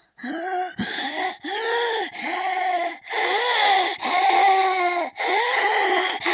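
A man's voice making zombie sound effects: a run of about seven short cries, each rising and then falling in pitch, with brief gaps between them.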